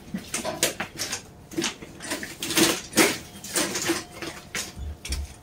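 Metal dog food bowls rattling and clinking on a small wheeled cart as it is pulled over the doorway and rough ground, with irregular clanks and knocks, the loudest about three seconds in.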